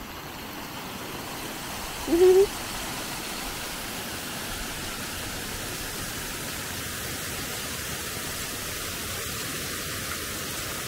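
A small waterfall spills over a stone weir into a rocky stream, making a steady rush of water. About two seconds in, a short pitched voice-like sound rises and then holds briefly over it.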